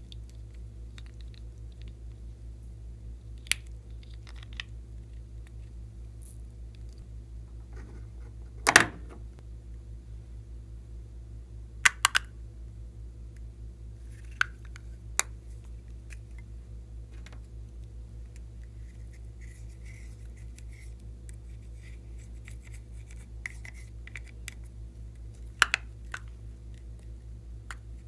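Plastic makeup compacts and eyeshadow cases being handled and opened by hand: a scattering of sharp plastic clicks and taps, the loudest about nine seconds in, over a steady low hum.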